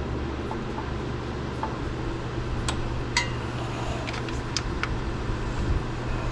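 Steady low machine hum, with a few light metallic clicks around the middle as a seal puller tool is worked against a transmission shift shaft seal.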